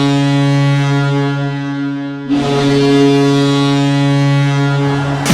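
Ice hockey goal horn blowing long, loud, steady low-pitched blasts. The first breaks off a little over two seconds in, and a second blast follows at once and is held until near the end.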